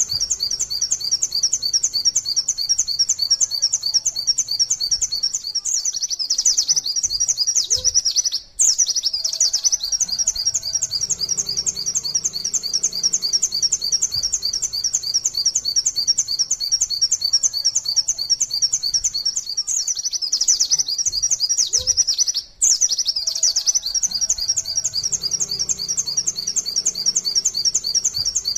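White-eye (pleci) singing the long 'nembak' song: a fast, unbroken stream of high repeated chirps, with two very short breaks about eight seconds and twenty-two seconds in.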